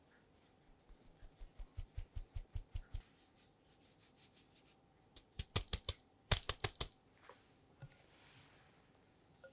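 Fine metal mesh sieve tapped rapidly, about six taps a second, shaking cake flour down into a bowl of batter. The taps grow softer, then come as two short clusters of louder, sharper taps a little past the middle.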